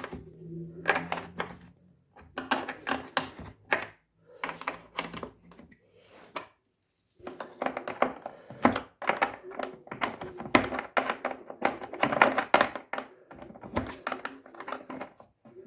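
Ratchet wrench clicking rapidly in bursts as the washing machine's motor-mount bolts are tightened, with a pause about six or seven seconds in.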